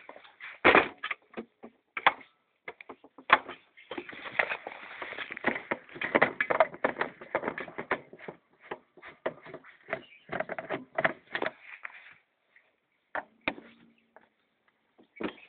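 Screws being taken out of the back cover of an old picture-tube TV: a run of irregular clicks, knocks and rattles, with two stretches of denser scraping.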